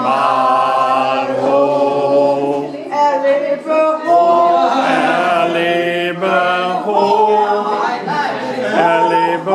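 A group of party guests singing a song together without accompaniment, in held notes that change pitch every second or so.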